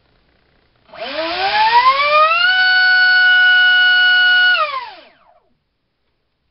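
2948-size 4800kv brushless in-runner motor spinning a 3.5-inch propeller on a 3-cell battery: a high-pitched whine with a rush of air that rises in pitch for about a second and a half, holds steady at speed for about two seconds while producing thrust, then winds down and stops.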